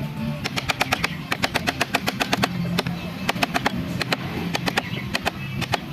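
Quick, irregular sharp taps of carving tools working into wood, several a second in bunches, over background music.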